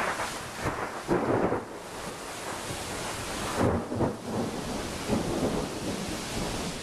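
Thunderstorm with heavy wind-driven rain and strong wind, with two loud sudden surges, one about a second in and one about halfway through.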